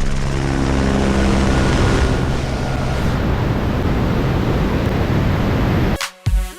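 Aircraft in flight: a steady engine drone under loud wind rush, the drone fading into the rush after about three seconds. Music cuts in abruptly near the end.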